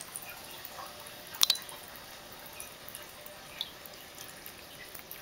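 Thin stream of water running from a bathroom sink faucet, dripping and splashing as a kitten drinks from it. A sharp double click about a second and a half in, and a fainter one a couple of seconds later.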